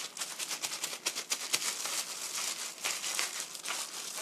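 Thin disposable plastic glove crinkling as a gloved hand kneads and rubs seasoning into raw chicken pieces: a dense run of quick, irregular crackles.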